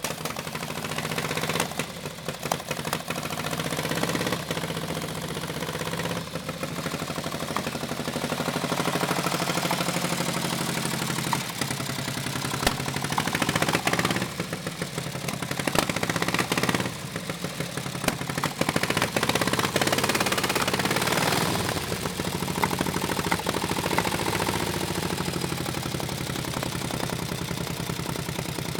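1915 Harley-Davidson F-head V-twin engine running with its muffler removed, just brought back to life after an engine rebuild; the engine speed rises and falls several times.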